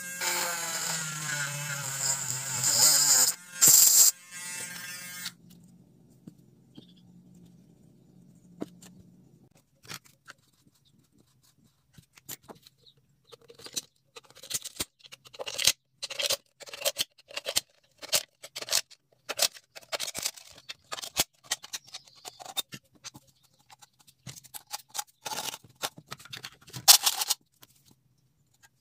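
Small mini rotary tool whining as it spins up, its pitch rising, and grinding into the rim of an aluminium soda can for about five seconds. After a pause comes a long run of irregular scrapes and clicks as a blade scores and cuts around an aluminium can, loudest near the end.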